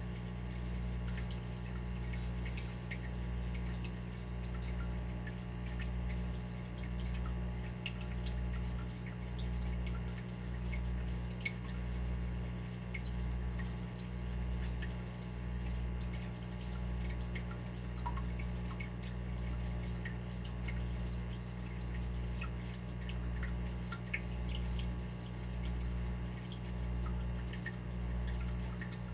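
Water dripping, scattered small drips and plinks over a steady low hum that swells and fades about once a second.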